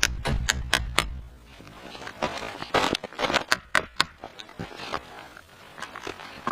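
A quick run of sharp clicks in the first second, then crunching, rustling handling noises with scattered clicks, fading lower after about four seconds.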